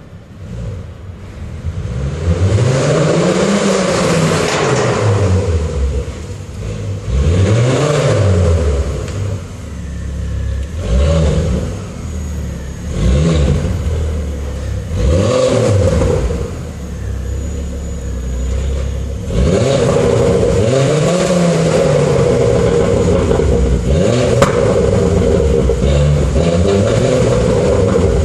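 Ford Focus ST engine revved several times, its pitch climbing and falling back with each rev, held higher for longer in the last third.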